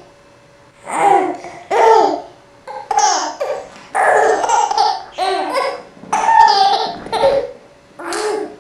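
A baby laughing and babbling in a string of short high-pitched vocal bursts.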